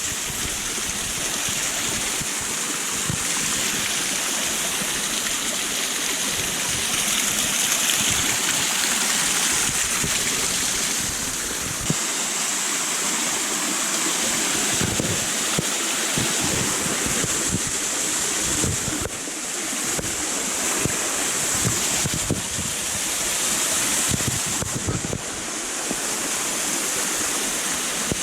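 Rushing water of a rain-fed mountain stream and waterfall: a steady, even hiss, with scattered low thuds underneath.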